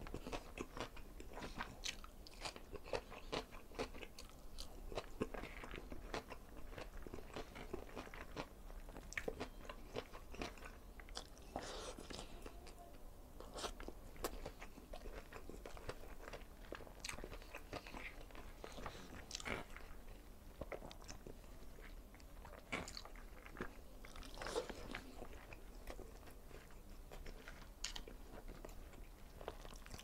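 Close-miked chewing of a mouthful of string bean adobo, liver, fried tilapia and rice eaten by hand, with dense, irregular wet clicks and smacks of the mouth.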